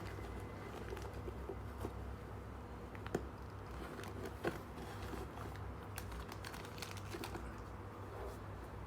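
Sneakers and their packaging being handled: scattered soft rustles and small taps, with two sharper taps about three and four and a half seconds in, over a steady low hum.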